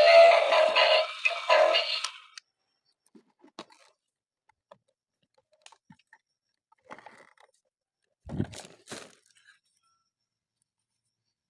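Music with singing that cuts off about two seconds in, followed by faint scattered crinkles and clicks of toy packaging being handled, with a louder knock about eight seconds in.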